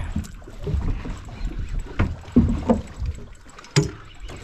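Water sloshing and splashing beside a small fishing boat, with wind buffeting the microphone, broken by two sharp knocks, one about two seconds in and one near the end.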